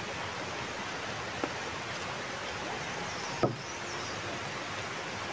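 Steady rushing outdoor background hiss, broken by a faint tick about one and a half seconds in and a short knock about three and a half seconds in.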